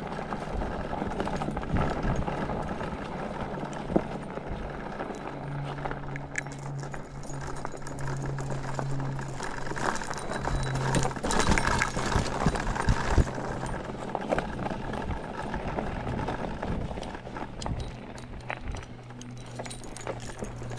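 E-bike being ridden: a steady low motor hum whose pitch shifts a little at times, with frequent small rattles and clicks from the bike over the ground.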